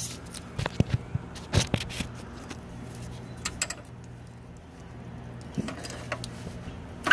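Metal clicks and clinks of a wrench working the oil pan drain plug loose on a 6.2-litre diesel, scattered and irregular, over a low steady hum.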